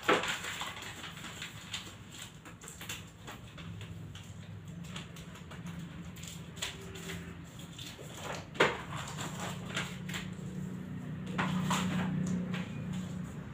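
Paper sheets rustling and crinkling as rolled paper on a wall is handled and unrolled to uncover pictures, with scattered short clicks and one sharper tap about two-thirds of the way in, over a low steady hum.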